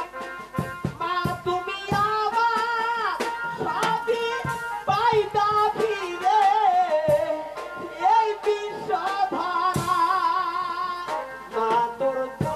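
Live jatra stage song: a voice sings a wavering, ornamented melody into a microphone over held accompanying notes and hand-drum strokes.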